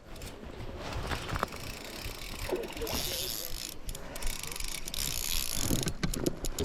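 Fly reel's click-and-pawl drag ratcheting in a fast run of clicks as line is pulled off or reeled in while playing a hooked trout.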